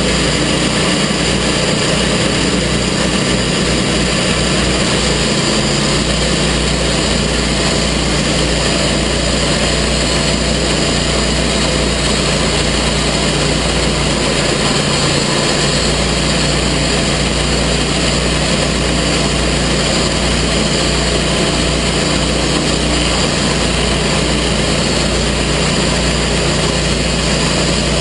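Gas engine of a TimberKing portable sawmill running steadily at an even speed.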